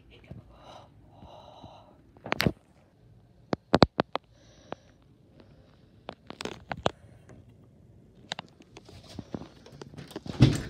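Scattered clicks and knocks from hands and a phone being handled while moving about a small room, with a couple of soft breathy sniffs early on. The loudest knock comes near the end.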